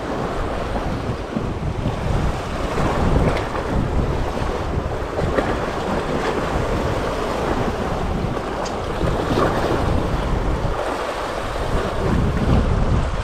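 Wind buffeting the microphone in uneven gusts over the steady wash of sea waves.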